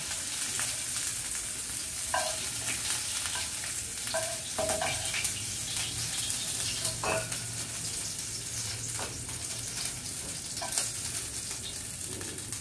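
Shrimp sizzling in oil in a frying pan, stirred with a spatula that knocks against the pan several times.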